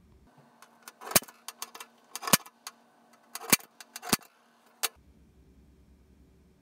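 A pointed punch clicking sharply against the galvanized sheet-metal wireway cover as it marks the centre of each hole to be cut. There are several clicks, the loudest four about a second apart with fainter ticks between, stopping about five seconds in.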